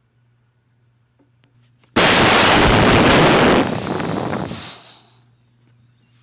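Explosion sound effect: a sudden loud blast about two seconds in, holding at full strength for about a second and a half, then rumbling away over the next second or so.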